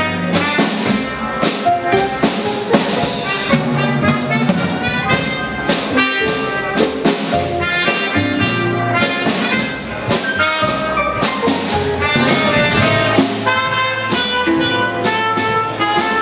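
Live dance band playing jazz: a trumpet carries the melody over a drum kit keeping a steady beat.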